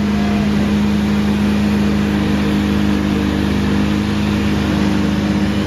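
Heavy demolition equipment's engine running steadily, a loud, even drone.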